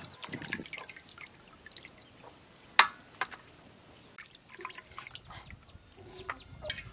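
Water splashing and dripping as raw chicken pieces are washed by hand in a steel bowl and dropped onto a steel plate. A sharp knock about three seconds in, and a smaller one just after.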